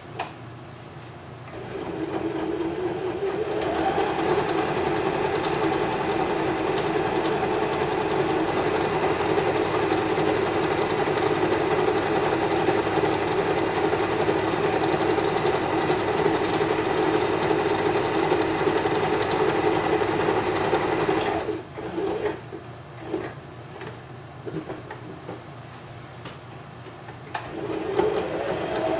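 Electric home sewing machine stitching close to the edge of fabric: the motor speeds up over the first couple of seconds, then runs at a steady speed. About three-quarters of the way through it stops, with a few light clicks as the work is handled, and near the end it starts up again.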